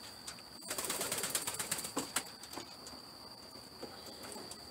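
Water splashing in a bucket as a racing pigeon is held and soaked in a force bath: a busy burst of splashes from about half a second to two seconds in, then a few single small splashes and drips.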